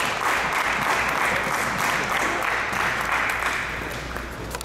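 Applause, a steady patter of clapping hands that tapers off near the end.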